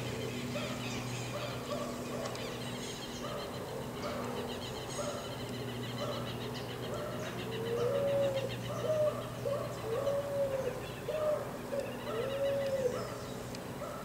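Picazuro pigeon cooing: a run of about five low, arched coos, one roughly every second, starting about halfway through. Smaller birds chirp throughout over a steady low hum.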